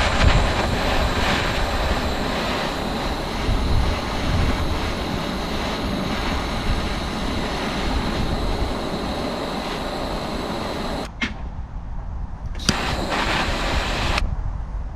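Campvil Firebat gas stick torch firing at full power: a loud, steady jet-flame rush. It cuts off with a click about eleven seconds in, then fires again briefly near the end.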